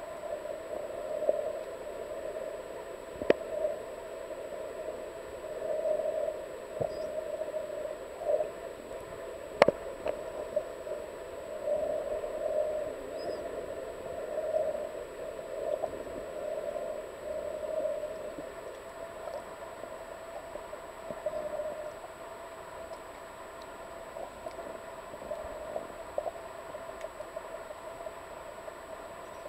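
Muffled sound heard by a camera under water: a dull noise that swells and fades every second or two, with two sharp clicks, one about three seconds in and a louder one near ten seconds.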